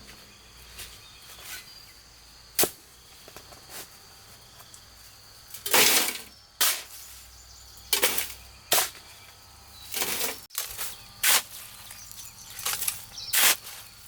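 Stones knocking and scraping against each other as they are handled: about a dozen sharp clacks at irregular intervals, some in quick pairs, with the busiest stretch near the end.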